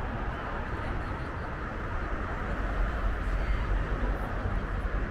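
Wind on the microphone, an uneven low rumble over a steady outdoor hiss.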